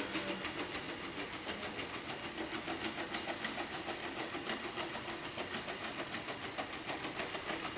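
Quadruped robot dog walking on a concrete floor: its feet tap in a quick even rhythm, about four to five taps a second, over a steady hum from its leg motors.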